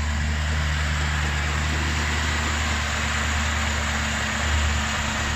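Supercharged BMW E39 540i's V8 idling steadily on a cold start, with a slight swell near the end.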